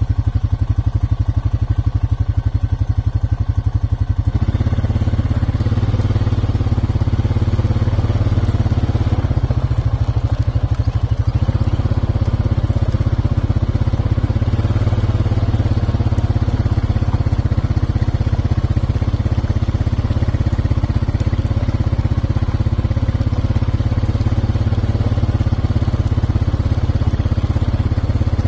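A small motor vehicle's engine running close by, a steady low drone that starts suddenly; its note shifts about four seconds in and again around eleven seconds.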